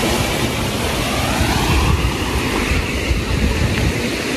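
Small garden stream rushing steadily over low stone weirs, with wind buffeting the microphone in gusts around the middle.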